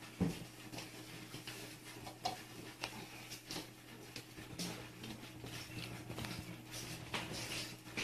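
Cats crunching dry kibble from small plates: irregular crisp clicks and crunches over a steady low hum.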